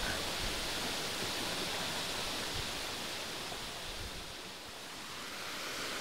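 Shallow rocky stream running over stones: a steady, even rush of water that eases slightly past the middle.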